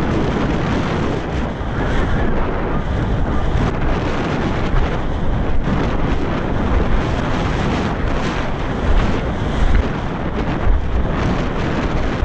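Wind buffeting a helmet-mounted camera's microphone as a mountain bike descends a dry dirt trail at speed, with tyre roar and frequent short rattles and knocks from the bike over the rough ground.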